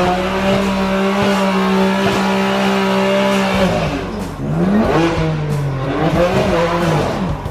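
A car engine held at steady high revs for about three and a half seconds, then let fall and revved up and down several times.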